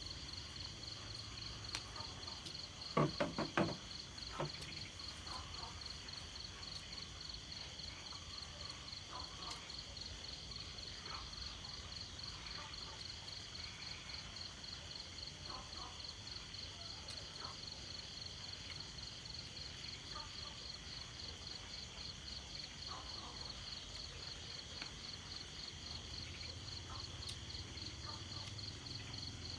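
Insects trilling in a steady, evenly pulsing high-pitched chorus, with faint scattered short chirps and a few soft knocks about three seconds in.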